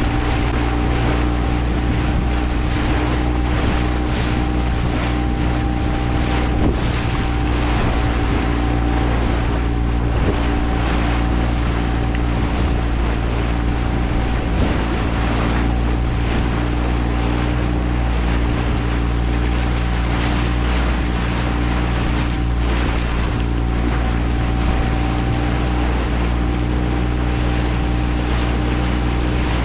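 A small motorboat's engine running at a steady speed, under the rush and splash of water along the hull and wind buffeting the microphone.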